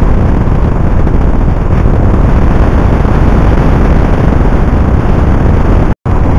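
Loud, steady rumbling noise with no distinct tones, heaviest in the low end, broken by a brief total silence near the end.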